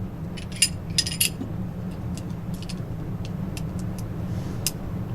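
Light metallic clicks and clinks, a dozen or so spread unevenly, from a pistol and its magazine being handled, over a steady low hum.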